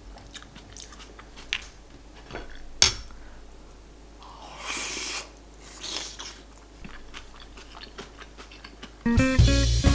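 Close-up eating sounds of a person having cold buckwheat-jelly soup: soft chewing with scattered small clicks and one sharp click just under three seconds in, then a slurp of broth from a small dish about four to five seconds in. Guitar music starts near the end.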